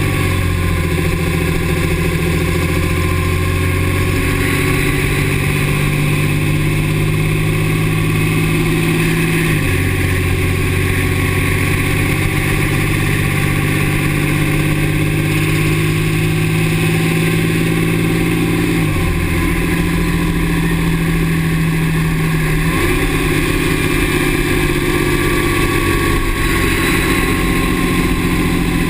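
Dodge Ram's 6.7 L Cummins turbo-diesel running under way, its engine note stepping in pitch three times as the revs change. A faint thin whine slides slowly down in pitch near the start and again near the end.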